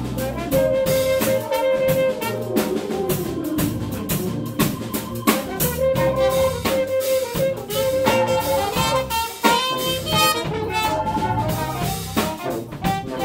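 Live jazz band playing a blues: a saxophone solo over the drum kit, with long held notes and quicker runs.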